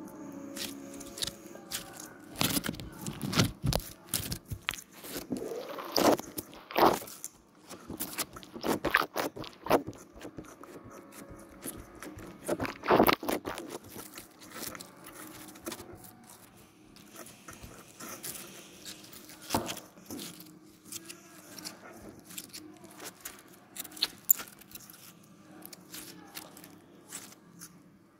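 Slime being squeezed and kneaded by hand: an irregular run of wet clicks, pops and squelches, busiest and loudest in the first half and sparser toward the end.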